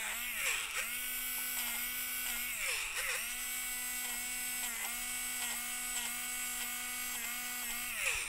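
Handheld electric eraser's small motor whirring as its spinning eraser tip cuts into pencil-shaded drawing paper, lifting graphite to bring back the white. The pitch sags each time the tip is pressed into the paper: about half a second in, around three seconds in, and again at the end.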